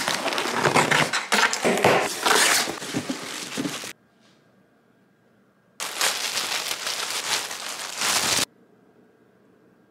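A cardboard shipping box being opened by hand: packing tape and paper packaging crackling and crinkling in two spells, each cutting off suddenly.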